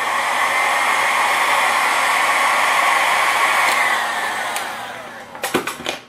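Electric heat gun blowing hot air to shrink heat-shrink tubing over a soldered wire joint: it runs steadily, then is switched off about four seconds in and its fan winds down with a falling pitch. A few clicks and knocks follow near the end.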